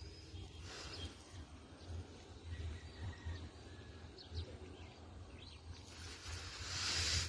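A dog eating dry dog food mixed with rice from a plastic tub, with faint, irregular chewing and nosing sounds. Faint bird chirps come and go, and a rushing noise swells about six seconds in, loudest just before the end.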